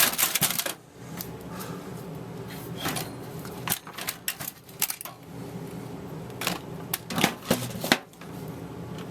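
Several bursts of rapid clicking and tapping over a steady low hum.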